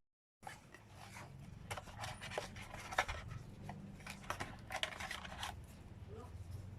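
Handling noises from a smartphone and its packaging being handled: rubbing and scraping with a quick series of small clicks and taps.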